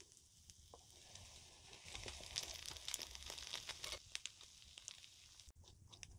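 Biting into a crispy piece of waffle-iron-pressed fried food: a dense run of crackly crunches from about a second in, loudest between two and four seconds, then quieter chewing with scattered crunches.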